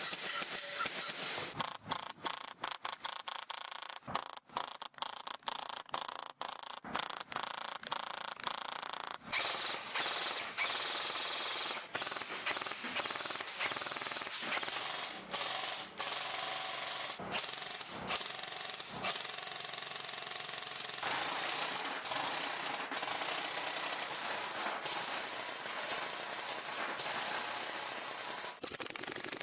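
Airsoft gun firing in rapid automatic bursts, broken by short pauses for the first several seconds, then more continuous.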